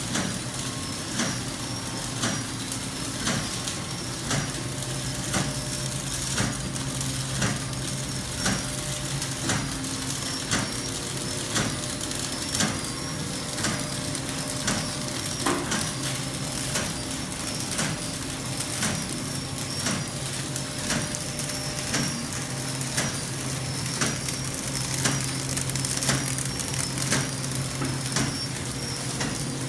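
Ameripak 40 horizontal flow-wrapper packaging machine running. It makes a steady low hum with a regular mechanical clack repeating about one and a half times a second as it cycles.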